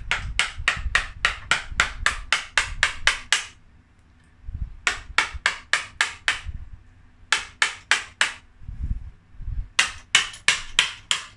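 Quick, light hammer taps, about five a second, in four runs with short pauses, as a mallet drives a chisel into an elm trunk to cut away its broken, rotten wood down to the heartwood.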